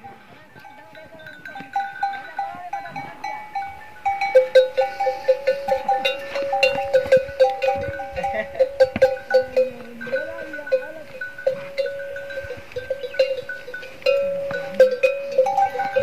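Camel herd with bells jangling in quick, uneven pulses at two steady pitches, and now and then a low wavering camel grumble. Locals take such camel sounds as a sign of the January rutting season.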